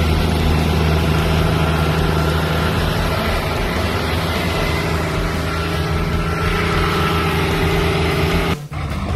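Off-road 4WD's engine idling steadily, with a low, even hum. The sound drops out suddenly near the end.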